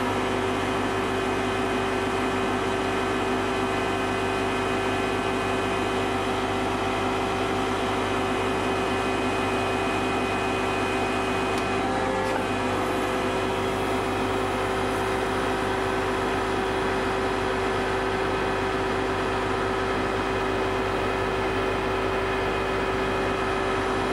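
Engine of heavy machinery running at a constant speed: a steady drone with several fixed tones that shift briefly about halfway through.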